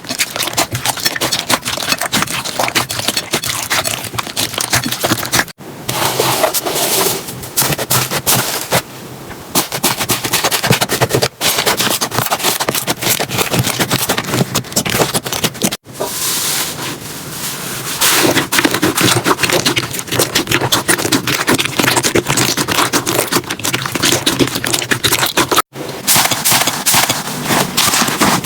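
Slime being squeezed and poked by hand, giving dense, rapid crackling and popping clicks. The sound breaks off and starts afresh four times as one short clip cuts to the next.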